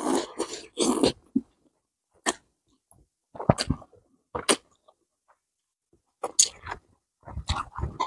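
A man's short, breathy gasps and hisses, about six of them a second or so apart, in reaction to the burn of very spicy noodles.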